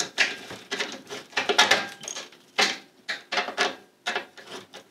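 Screwdriver backing out the screw that holds a fluorescent light ballast to the fixture's sheet-metal housing: a run of short, irregular metal clicks and scrapes, several a second with brief pauses.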